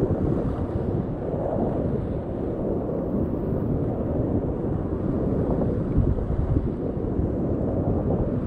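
Rushing white water of a river rapid around a kayak, with wind and water buffeting a helmet-mounted camera microphone; a steady, dull rush with little high-pitched content.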